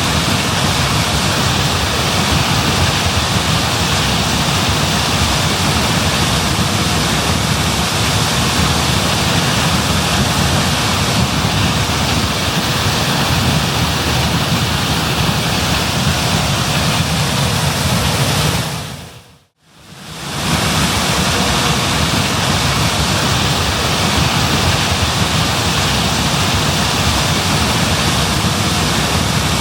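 Steady, even machine noise of a John Deere S660 combine harvesting corn. The sound fades out and back in about two-thirds of the way through.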